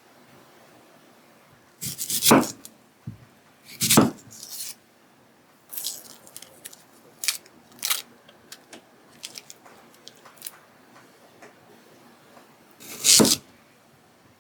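Irregular kitchen handling sounds: three louder knocks or clatters about 2, 4 and 13 seconds in, with lighter clicks and rustles between them.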